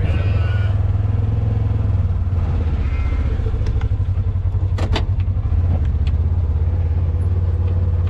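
Vehicle engine running with a steady low hum, heard from inside the cab as it rolls slowly, with a sharp click about five seconds in.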